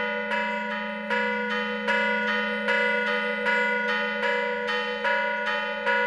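Two mission bells in a bell wall rung by hand with ropes, struck in a steady rhythm of about two and a half strokes a second, with louder and softer strokes alternating, their tones ringing on continuously beneath the strikes.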